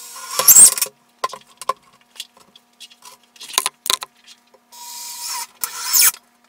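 Handling noises: short scrapes, rubs and knocks as the wood and the camera are moved about. The loudest is a sharp scrape about half a second in, with scattered clicks after it and another scrape near the end.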